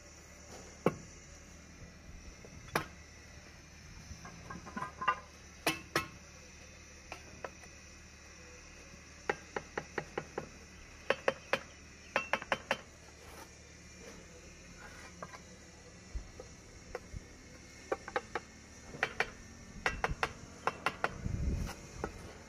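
Mason's trowel clinking and scraping against a mortar pan and clay roof tiles while bedding khaprail tiles in mortar: sharp clinks in quick runs, with quieter gaps between.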